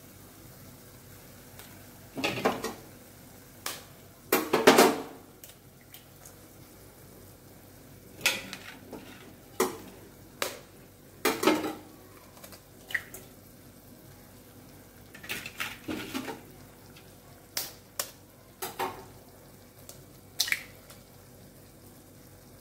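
Four eggs being cracked one after another into a nonstick pan of cooking masala: scattered sharp taps and knocks of eggshell and hands against the pan, the loudest about two, four and a half and eleven seconds in.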